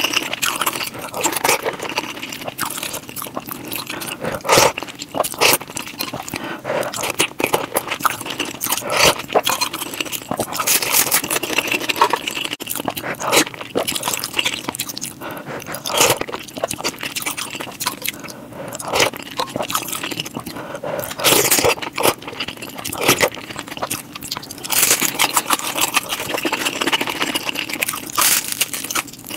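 Close-miked ASMR eating of Indian curry: chewing and wet mouth sounds with many irregular clicks, crunches and scrapes.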